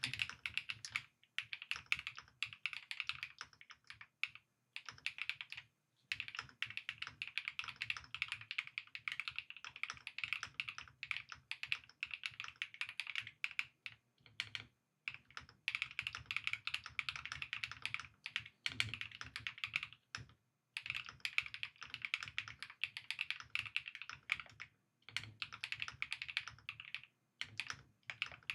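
Fast typing on an Epomaker Split 70 mechanical split keyboard: rapid key clicks in runs of a few seconds, broken by brief pauses.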